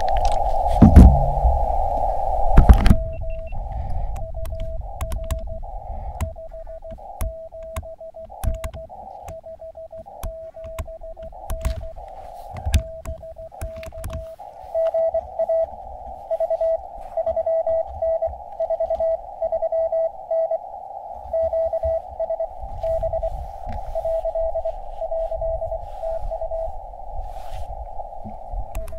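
Morse code (CW) from an Elecraft KX2 QRP transceiver: a single mid-pitched tone keyed in dits and dahs over the receiver's band hiss. The keying grows louder and more even about halfway through. A loud low rumble sits under the first few seconds.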